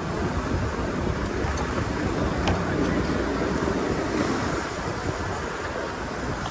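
Wind rushing and buffeting the microphone of a camera on a moving bicycle, a steady low rumbling haze, with one faint click about two and a half seconds in.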